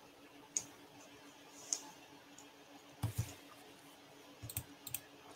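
Faint, scattered clicks of a speedcube being turned, heard over a video call, a few single clicks and then short clusters near the end, over a steady low hum.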